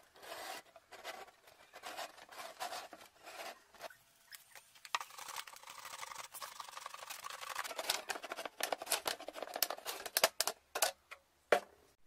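Marker tip rubbing in short strokes on a plastic jug, then a utility knife blade scraping and cutting through the thin plastic, breaking into quick sharp clicks near the end.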